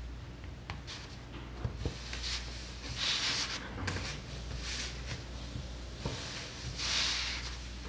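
Paper rubbing and sliding as a sheet is turned on the table, loudest about three seconds in and again near the end, with a fingertip's small dabs and scrapes in the acrylic paint between.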